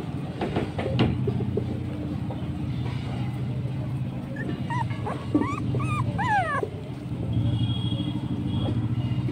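Puppies whimpering and yipping: a short run of high, rising-and-falling cries about halfway through, over a steady low hum.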